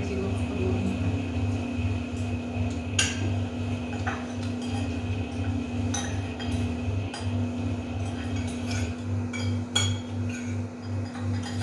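Spoons and forks clinking against plates and bowls during a meal, in scattered sharp clinks, with a steady low hum underneath.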